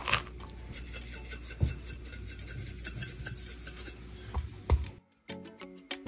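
Hands rubbing dry seasoning into the skin of a whole raw red snapper on a plastic cutting board: a soft scratchy rasping with a few dull thumps. About five seconds in it cuts off and background music takes over.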